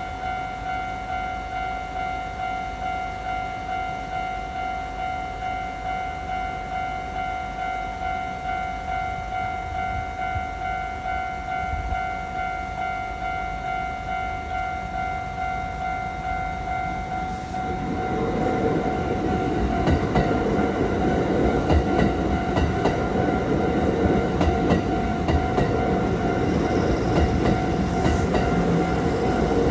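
A Japanese level-crossing warning bell dings in a steady repeating rhythm. About two-thirds of the way through, a coupled Kintetsu 8A series and 8810 series train set arrives, its wheels rumbling and clacking over the rail joints, louder than the bell, while the bell keeps ringing.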